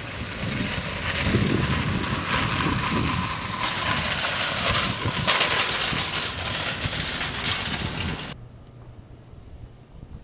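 Wire shopping cart rattling loudly as it rolls over asphalt, a dense clatter that cuts off suddenly about eight seconds in.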